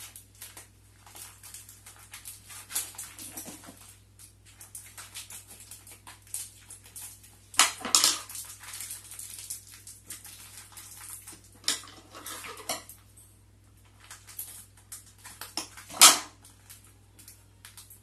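Small plastic packaging bag crinkling and crackling in the hands as it is opened, with louder sharp crackles about eight seconds in and again near the end.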